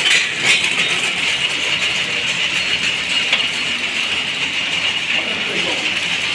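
Steady, loud machinery din, a high, even rushing noise, with a few sharp metallic clicks, as parts of a power loom are handled.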